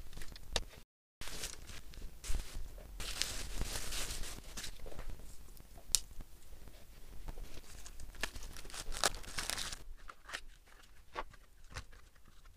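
Protective packaging wrap being torn and crinkled off a new folding bike's frame, in bouts of rustling, with sharp clicks and knocks from the bike being handled and unfolded.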